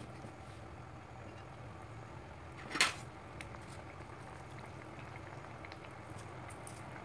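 Fish curry simmering in a nonstick frying pan, a steady low bubbling. One short knock about three seconds in.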